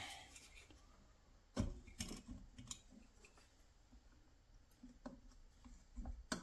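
Faint, scattered clicks and light knocks of hand tools and metal engine parts being handled during engine reassembly. There are about half a dozen separate clicks with quiet between them.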